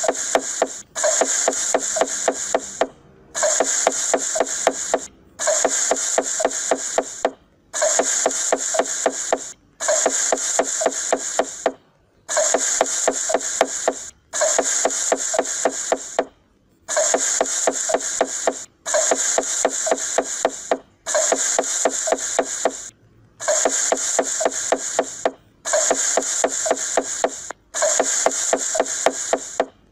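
Knife chopping quickly on a wooden cutting board, a looped sound effect: runs of rapid chops about two seconds long, repeating over and over with a short silent break between each run.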